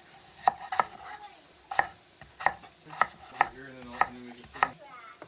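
Knife chopping food on a cutting board: about eight sharp strokes at an uneven pace.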